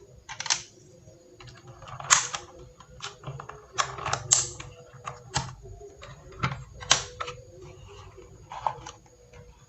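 Keys on a DA Meca 6 Plus mechanical keyboard fitted with Outemu switches pressed one at a time: about a dozen separate, irregularly spaced clicks, as a newly fitted switch is being tested.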